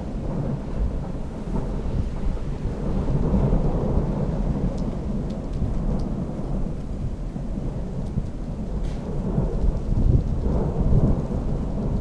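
Thunder rumbling through a storm. The low, rolling rumble runs continuously and swells twice, a few seconds in and again near the end.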